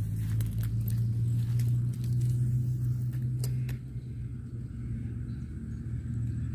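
A small engine running steadily with a low hum, easing off slightly about four seconds in, with two sharp clicks just before.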